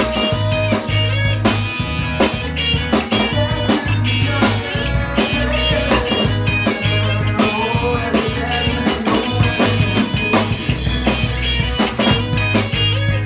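Rock band playing an instrumental passage live: electric guitars over a deep bass line and a drum kit keeping a steady beat.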